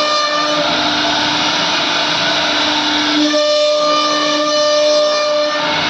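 CNC router spindle running at speed while carving, a steady whining tone over cutting noise.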